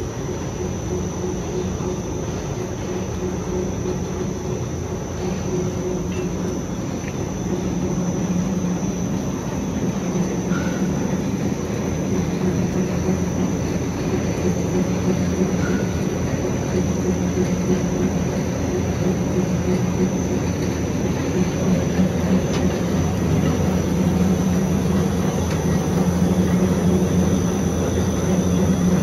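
Two-colour flexo printing machine running, a steady mechanical hum with a thin high whine over it, growing slightly louder partway through.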